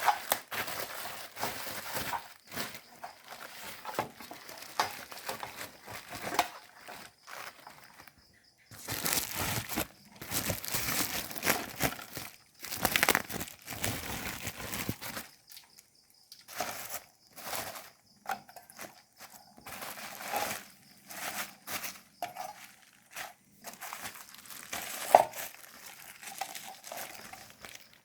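Plastic packaging crinkling as it is handled, in irregular bursts with short pauses and a few sharp clicks.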